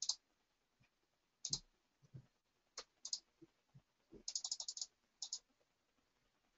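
Faint computer mouse clicks: single clicks about a second apart, and a quick run of about eight clicks a little past the middle.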